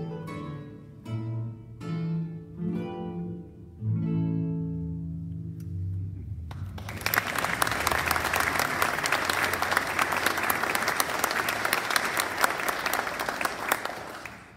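Classical guitar playing the last few plucked notes of a piece, the final chord left to ring out. Then an audience applauding, which cuts off suddenly.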